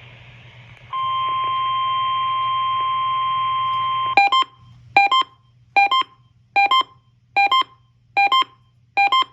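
NOAA Weather Radio warning alarm tone sounding steadily for about three seconds, then cut off by electronic beeps: quick double beeps repeating about every 0.8 s, seven of them.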